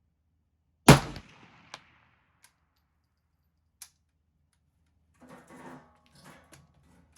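A single shot from a MAK-90 AK-pattern semi-automatic rifle in 7.62x39 about a second in, a sharp crack with a short fading tail, followed by a faint click.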